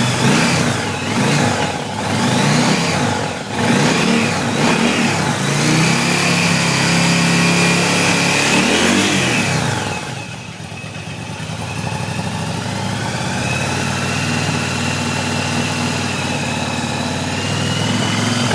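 2004 Yamaha V-Star 1100 Custom's air-cooled V-twin through its stock exhaust, blipped several times and held at higher revs, then dropping back to a steady idle about ten seconds in. The stock pipes sound pretty mild and meek, not very loud at idle.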